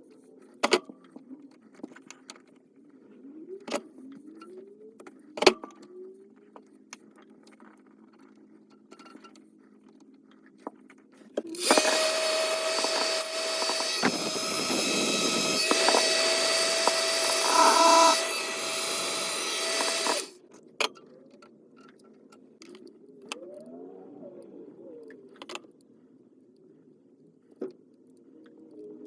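Scattered clicks and scrapes of tools and parts being handled, then a small motor running loudly with a steady whine and hiss for about nine seconds, starting about 11 seconds in and cutting off suddenly.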